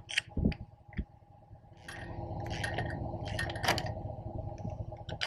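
Light metallic clicks and knocks of a washer, bolt and wrench being handled on the steel trailer frame, with a steady hum coming in about two seconds in.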